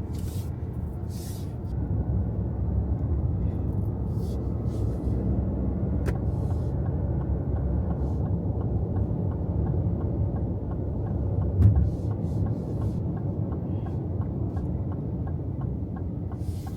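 Road noise inside a moving car: a steady low rumble. From about halfway through, a turn signal ticks evenly, and one thump comes about two-thirds of the way in.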